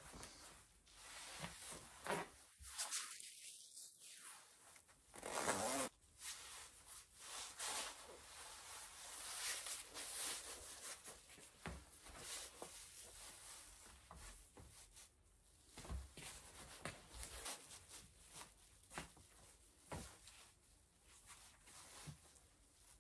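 Faint rustling and zipping of a gold stretch-jersey jacket as it is put on and zipped up: a run of short scraping strokes, with a louder sweep about five to six seconds in.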